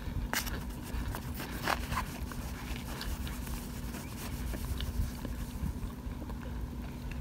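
Spoon digging through a pan of oven-baked cornstarch chunks, with small crunches and crackles that are densest in the first two seconds. A steady low hum runs underneath.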